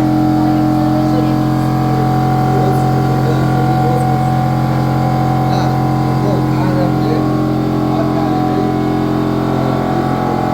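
An engine or motor running steadily at a constant speed, a loud, even drone.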